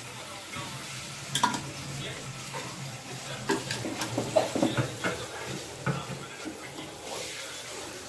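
Chicken pieces in masala sizzling in an aluminium pot while a spatula stirs them, with irregular scrapes and knocks of the spatula against the pot.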